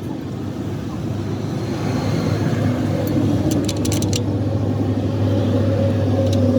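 An engine running steadily, a low even hum that builds slightly in level, with a quick run of sharp clicks about halfway through.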